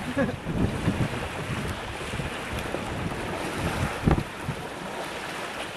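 Strong gusty wind blowing across the microphone, a low rumble that rises and falls unevenly, with the hardest gust about four seconds in.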